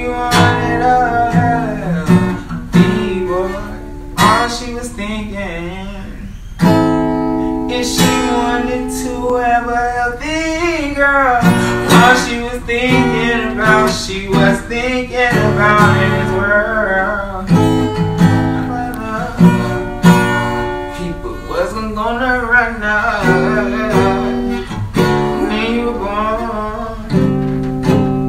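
Background music: strummed acoustic guitar with a singing voice.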